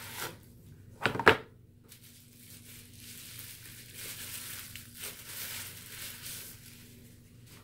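Gift packaging being handled and unwrapped: two sharp snaps about a second in, then a few seconds of rustling and crinkling.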